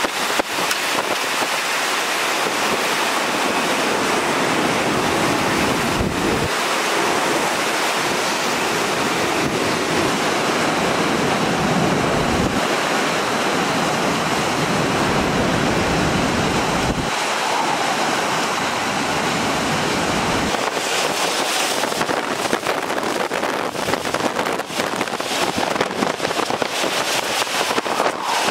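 Hurricane-force wind and rain, a loud steady rush with gusts buffeting the microphone. The sound shifts abruptly a few times where the footage cuts between shots.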